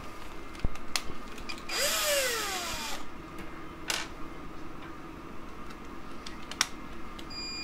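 Cordless drill run briefly about two seconds in: its motor whine spins up and winds down over about a second. A few sharp clicks come before and after it.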